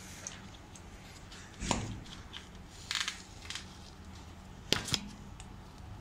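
Hands handling wet tape and foam insulation on an air-conditioner pipe joint: a few sharp scrapes and knocks, over a steady low hum.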